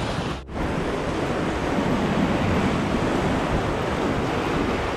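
Sea waves washing and splashing against a rocky shore as a steady rushing noise, with wind on the microphone. The sound drops out briefly about half a second in.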